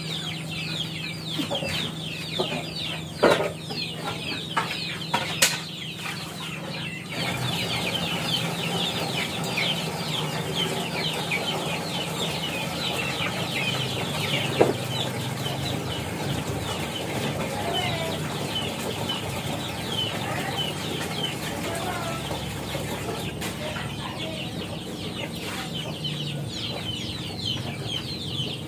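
Chickens clucking, with a steady chorus of short, high, falling peeps throughout. A few sharp knocks and clatters come in the first several seconds, and one more about halfway.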